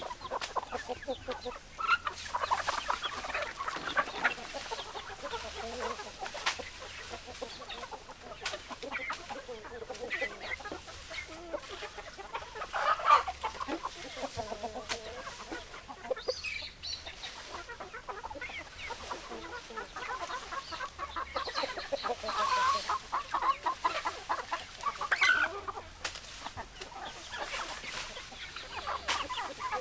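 Hens clucking continuously, many calls overlapping, with a few louder calls standing out now and then.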